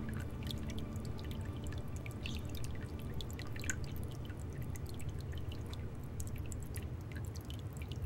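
Water trickling off a stone ledge into a small pond in thin streams, with many small irregular drips over a steady low splashing.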